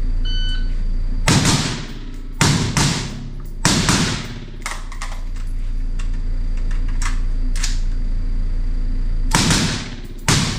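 A shot-timer beep, then rifle shots ringing in an indoor range: three shots about a second apart, a pause with a few faint clicks, and two more shots near the end. A steady low hum runs underneath.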